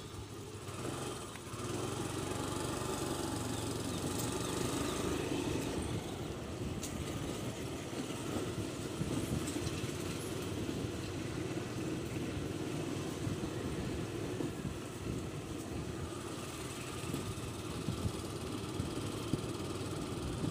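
A small engine running steadily, with a rough rumble.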